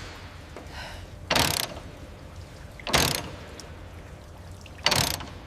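Three short mechanical rattling bursts, about a second and a half to two seconds apart, from a wrench tightening bolts, over a low steady hum.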